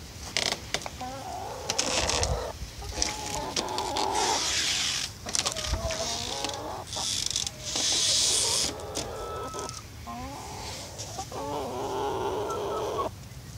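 Barred Rock hens clucking and chattering in drawn-out, wavering calls, several in a row, with bursts of rustling noise between them.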